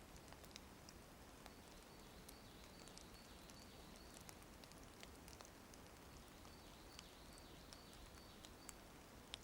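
Near silence: faint natural ambience with soft high-pitched chirps repeating every half second or so and a few scattered small ticks.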